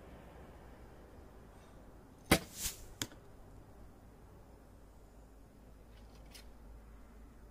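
Recurve bow shot: a sharp snap of the string on release about two seconds in, a brief hiss of the arrow in flight, then a knock of the arrow striking the target about 0.7 s later. Faint clicks near the end as an arrow is drawn from the quiver.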